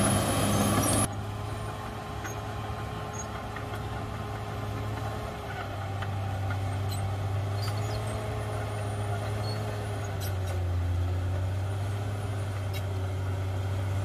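Diesel engine of a Caterpillar D6R XL crawler bulldozer running under load with a steady low drone and a wavering higher whine. It is loud and close for the first second, then more distant after an abrupt change, rising a little in loudness about five seconds in and again about ten seconds in. A few faint clicks are scattered through it.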